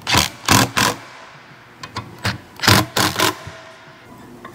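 Cordless impact wrench hammering in short bursts on the bolts of a catalytic converter's heat shield: three quick bursts, a pause, then four more.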